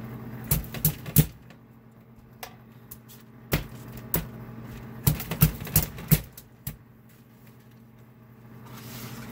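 Metal push-plunger vegetable chopper clacking and knocking as a bell pepper is pushed down through its grid blades and the cut strips are handled, in irregular groups of sharp clicks with a dense run of them about halfway through. A steady low hum sits underneath.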